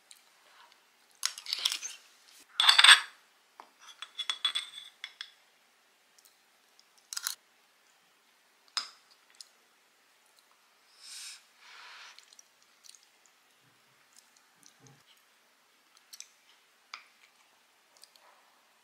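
Metal spoon and wooden spoon clinking and scraping against a stoneware bowl and a skillet while dumplings are scooped and eaten. The loudest clinks come about one to three seconds in, then sparse small clicks with a soft scrape near the middle.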